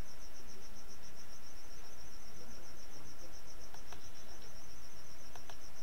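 An insect trilling steadily, a high, fast-pulsing chirp over a low background hum, with a few faint clicks in the second half.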